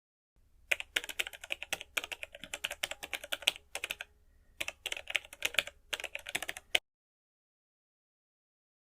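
Keyboard typing: a run of quick, irregular key clicks with a short pause about four seconds in, stopping shortly before the end.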